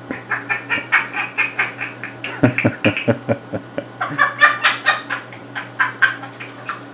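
African grey parrot giving rapid runs of short, clucking calls, about five a second, in three bursts.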